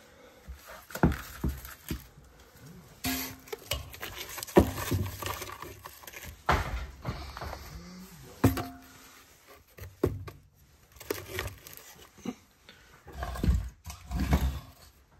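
Birch logs being set into a wood stove's firebox: irregular knocks and scrapes of wood against the stove and its bed of ash.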